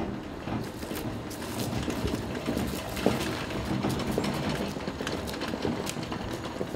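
The small engine of an Easi-Loader Power Barrow micro dumper running steadily as the machine drives along, with scattered ticks and crunches over the top.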